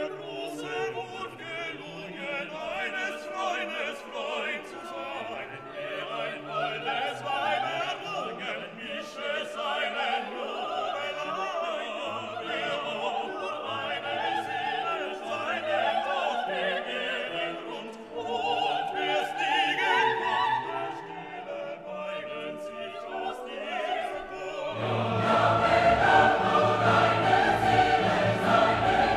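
Classical-style background music with singing and orchestra, growing fuller and louder about four-fifths of the way through.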